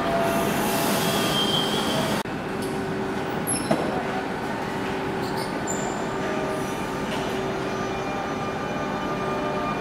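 CP Series 2240 electric multiple unit at the platform giving a steady electric hum with a constant tone. It is louder for the first two seconds, then drops abruptly and settles, with a single sharp click about a second and a half later.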